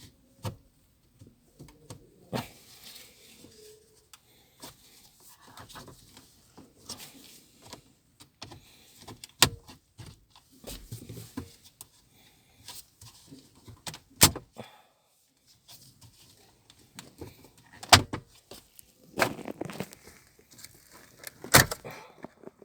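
Plastic dashboard trim and climate control panel being pried out and handled: scraping and rattling broken by several sharp clicks as the retaining clips let go.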